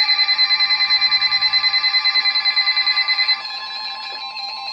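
Several NOAA weather radios alarming at once for a severe thunderstorm warning: steady shrill tones with fast pulsing beeps over them. About three and a half seconds in, several alarms cut off, leaving the steady warning alert tone of about 1050 Hz and fainter beeping.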